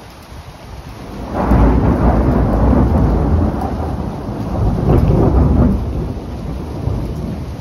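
Thunder rolling after a lightning strike: a deep rumble swells about a second in, swells again a few seconds later, then dies away, over steady rain.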